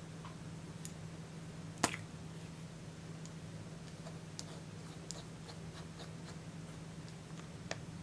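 Plastic cap pulled off a lipstick-style color stick with one sharp click about two seconds in, followed by a few faint ticks and taps of the tube being handled, over a low steady hum.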